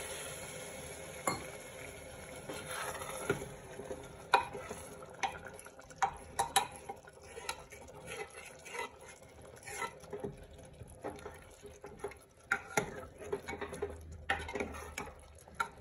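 Steel ladle stirring a watery curry in an aluminium pressure cooker pan, with repeated scrapes, clinks and knocks of metal on metal. A soft sizzle fades over the first couple of seconds.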